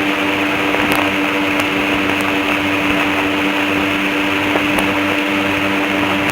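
Airboat engine and air propeller running at a steady speed: a loud, even drone with a constant hum.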